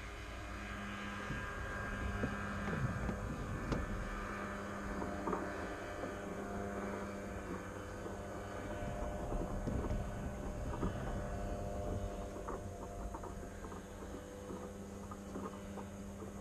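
A steady low rumble and hum, with scattered light knocks and rattles through the Fly Synthesis Storch S ultralight's airframe as it is handled during the pre-flight external check.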